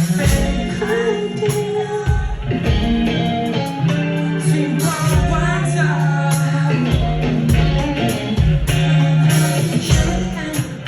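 Pop-rock song: a singing voice over guitar, bass and a steady drum beat.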